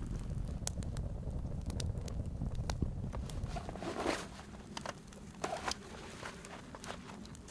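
A wood campfire crackling, with scattered sharp pops, over a low rumble of wind on the microphone that drops away about halfway through. A couple of brief scuffs come near the middle.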